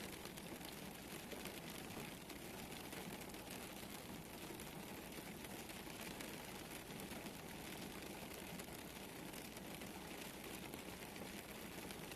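Rain falling: a steady patter of many small drops, even throughout.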